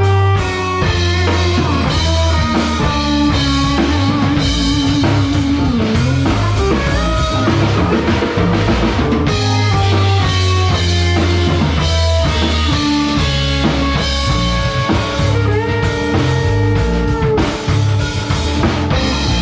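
Live instrumental fusion band: hollow-body electric guitar, electric bass, keyboards and drum kit playing together. The band stops together at the very end.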